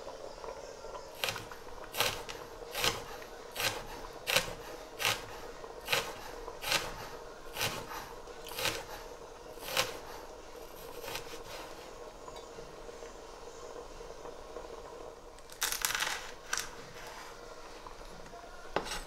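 Wide-bladed knife slicing fresh ginger on a wooden chopping board: about a dozen steady, evenly spaced strokes, a little more than one a second, stopping about ten seconds in. A short burst of knocks follows near the end.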